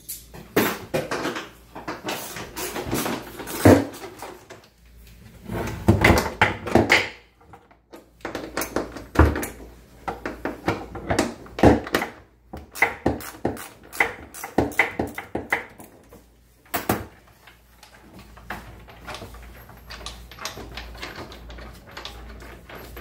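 Irregular metallic clicks, knocks and clatter of a wrench and 17 mm bolts being worked on and handled for about 17 seconds, then only faint handling sounds.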